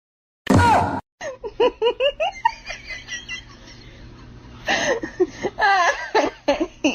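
A short loud sound about half a second in, then a person laughing in quick runs of high giggles, the second run louder.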